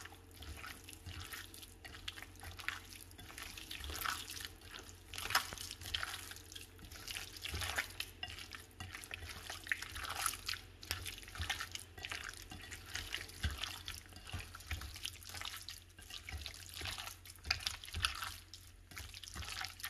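A hand squishing and kneading raw chicken pieces in a wet marinade of masala powder and beaten egg: faint, irregular wet squelches and smacks.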